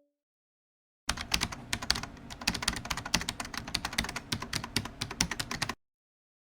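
Rapid computer-keyboard typing, a dense run of irregular key clicks that starts about a second in and cuts off sharply near the end, the typing effect of a text message being written.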